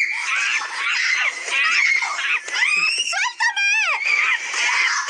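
A young girl screaming over and over in high, wavering cries as a monkey clings to her leg, the screams of a child being grabbed and bitten.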